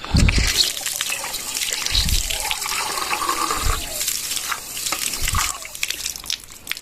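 Water running and splashing as a steady hiss, with a few dull low bumps.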